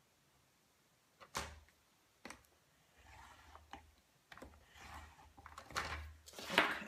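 A paper trimmer's scoring blade clicking and scraping along its rail as it scores a diagonal fold line into card stock, with the paper rustling. It starts with a couple of sharp clicks, then comes a run of soft scraping that grows louder toward the end.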